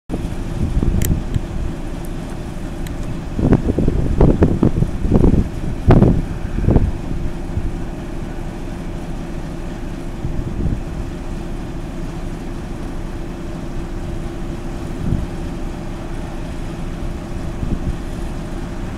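SU42 diesel locomotive's engine running with a steady low drone. Wind buffets the microphone in gusts for a few seconds, starting a few seconds in.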